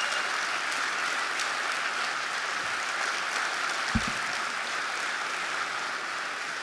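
Audience applauding steadily and slowly thinning out, with a single low thump about four seconds in.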